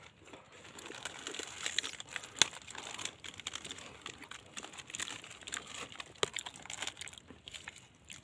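Plastic snack wrapper crinkling as it is handled: irregular crackles with one sharper click about two and a half seconds in.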